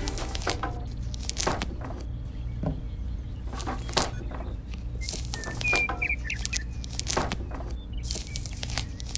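Thin wooden mould strips cracking and clicking as they are pried by hand off a small cast concrete column, in scattered sharp snaps.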